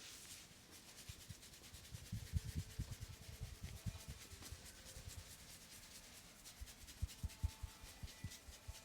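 Hands rubbing over skin and hair in a head massage, with two quick runs of soft low pats.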